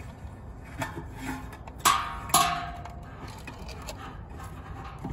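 Two sharp metallic clanks about half a second apart, each ringing briefly, as satellite-dish hardware is knocked against the dish's metal feed arm during assembly, with small handling clicks around them.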